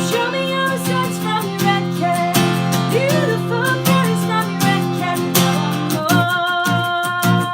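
Acoustic guitar playing a song live: chords ring on under a wavering, bending melody line, and strumming picks up again near the end.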